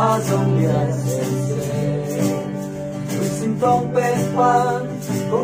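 A small group singing a gospel hymn together to acoustic guitar. A held note gives way to a new sung phrase about three and a half seconds in.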